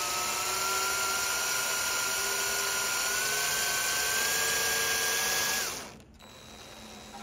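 Drill running steadily as it bores down the center of an aluminum aircraft rivet's shank to free it from the hole, its whine rising slightly in pitch, then stopping near the end.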